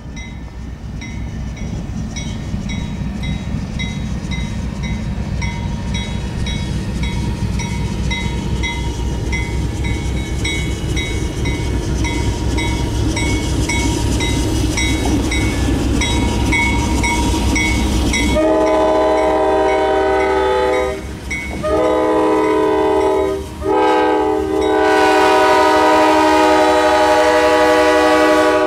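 Railroad crossing bell dinging about twice a second while the diesel rumble of Seminole Gulf locomotives #591 and #590 grows louder as they approach. About 18 seconds in, the lead locomotive's air horn sounds three blasts for the grade crossing, the last held long.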